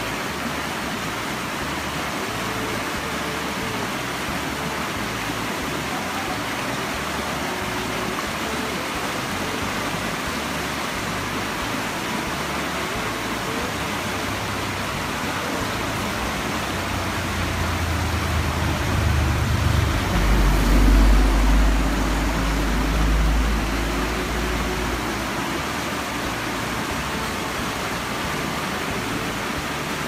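Shallow mountain river rushing steadily over rocks. A low rumble swells and fades about halfway through.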